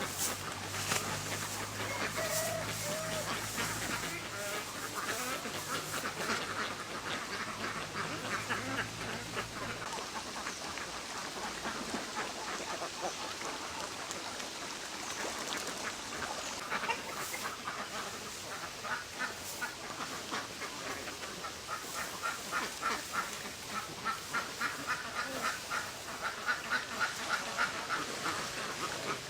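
A flock of domestic ducks quacking, many calls overlapping, growing more rhythmic and pulsing toward the end. A low steady hum runs underneath for the first third, then stops.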